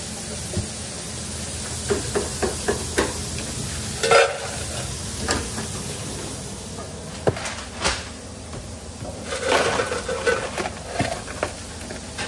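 Busy fast-food kitchen work sounds: scattered knocks and clinks of metal utensils and a stainless steel bowl, with a rustling, clattering spell near the end as fries are handled, over a steady background hum of kitchen equipment.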